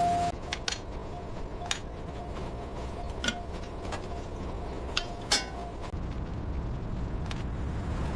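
Scattered sharp light clicks and clinks, about seven in all, the loudest a little past the middle, over a steady low rumble. A chime-like tone dies away just after the start.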